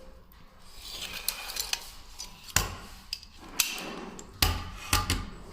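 Steel ball-bearing drawer slides being worked by hand: sliding rattles broken by several sharp metallic clacks as the sections hit their stops and lock.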